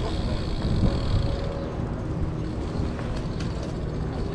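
Steady city street traffic noise, a mixed rumble of passing vehicles.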